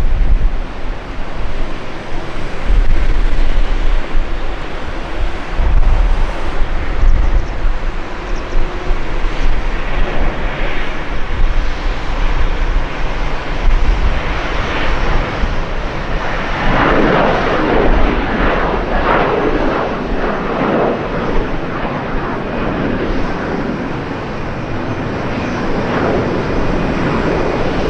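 Jet noise from a departing Airbus A321 airliner's engines at takeoff power: a continuous crackling roar that grows loudest a little past the middle and then eases slightly. Wind buffets the microphone during the first several seconds.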